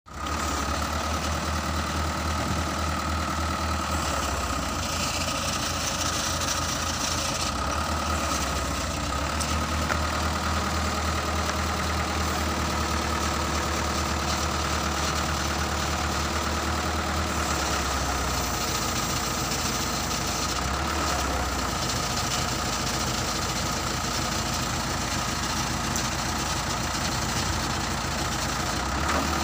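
Diesel engine of a hoist (winch) for lifting concrete, running steadily.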